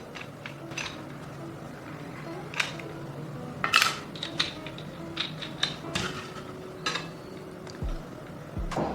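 Metal parts clinking and knocking as they are handled, in scattered light hits; the loudest, a ringing clink, comes near the middle. A faint steady hum runs underneath.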